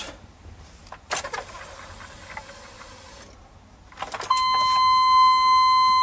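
A hiss lasting about two seconds, then from about four seconds in a steady, unbroken electronic beep that is the loudest sound and holds on.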